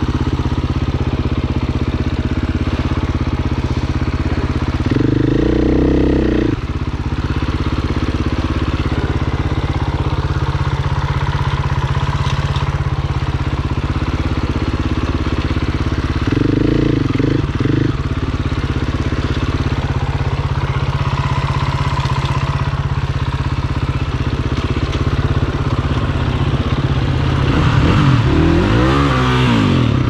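Dirt bike engine running steadily at low speed, with short revs about five seconds in and again about seventeen seconds in, and a rev that climbs and falls back near the end.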